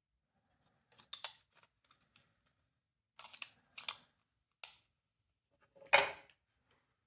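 Parts of a smoke detector being handled and taken apart: a series of about six short, sharp clicks and snaps of small plastic and metal parts, the loudest near the end.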